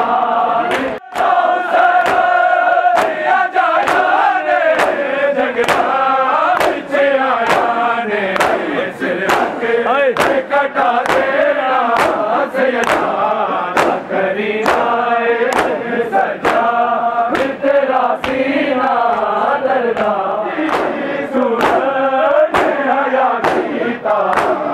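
A crowd of male mourners chanting a noha together, over the rhythmic slaps of hands beating on bare chests (matam), about one and a half slaps a second in time with the chant.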